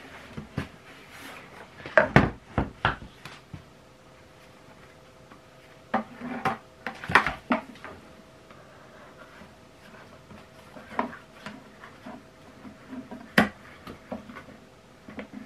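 Plastic knocks, clatter and rustling from handling a Karcher WD3 wet-and-dry vacuum's plastic drum while a cloth dust bag is pushed in and its collar is fitted onto the inlet. The knocks come in short clusters, the loudest about two seconds in and around six to seven seconds in.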